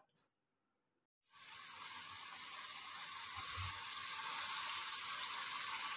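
Aloo keema (potato and minced-meat curry) sizzling in a wok: a steady hiss that starts about a second in and slowly grows louder.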